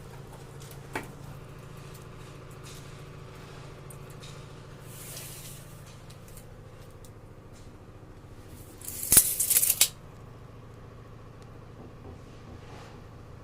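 Steady low hum with a single click about a second in, then a short, loud burst of rattling clicks about nine seconds in.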